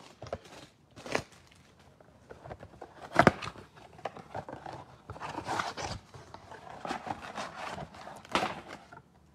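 Cardboard trading-card box being opened and its wrapped packs handled: scattered rustling, scraping and light taps, with one sharper knock about three seconds in.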